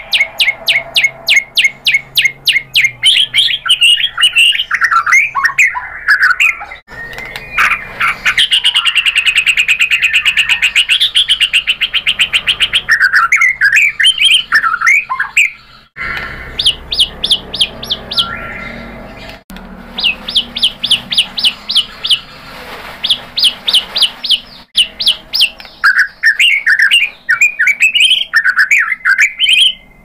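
White-rumped shama singing: long runs of rapid, sharply repeated notes alternating with varied warbled phrases, the song breaking off abruptly a few times.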